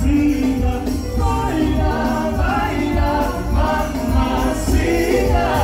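Loud music with a singer over a steady heavy bass, played live in the venue.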